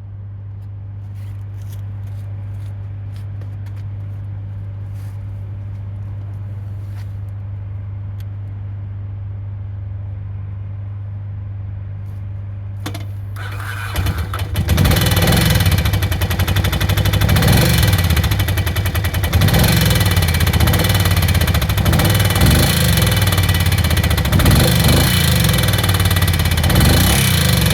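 Ducati 750 ie Sport's air-cooled L-twin starting about fourteen seconds in after a steady low hum, then running loudly with a rapid mechanical ticking on top. The owner calls it a bad desmo sound, pointing to the desmodromic valve gear.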